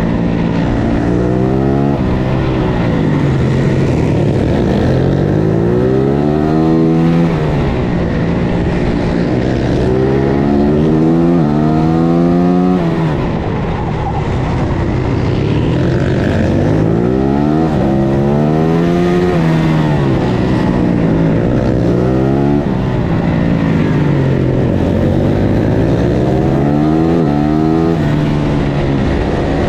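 Onboard sound of a 450 supermoto race bike's single-cylinder four-stroke engine at racing speed. Its pitch climbs in quick steps as it shifts up through the gears, then falls away as it slows into corners, several times over, with wind rushing past the microphone.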